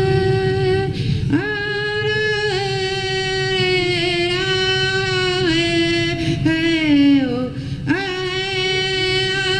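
A woman singing a Sioux praise song unaccompanied, from a 1968 field recording. She holds long notes in phrases that slide down in pitch at their ends, with a short break about a second in and another near eight seconds in.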